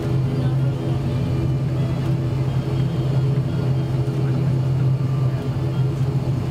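ATR-72 turboprop engines and propellers running steadily, heard inside the cabin: a constant low propeller drone with a stack of higher humming tones above it.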